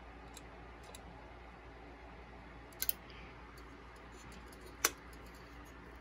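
A few light clicks as a tower CPU cooler and its fan cable are handled during fitting: a quick double click about three seconds in and a single sharper click near five seconds.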